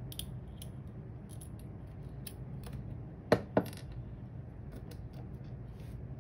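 Small metallic clicks and ticks as steel tweezers work a brass pin out of a lock cylinder and set it down, with two sharper clicks a little over three seconds in.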